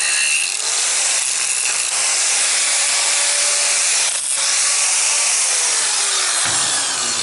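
Angle grinder disc cutting down through steel, a steady gritty hiss with a brief dip about four seconds in. Near the end the motor's pitch falls.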